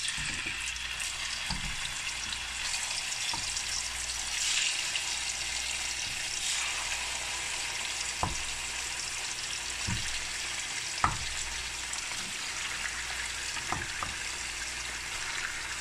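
Raw chicken pieces sizzling steadily in hot oil in a non-stick wok on full flame, as the chicken is first put in to fry. A few short, sharp knocks stand out over the sizzle.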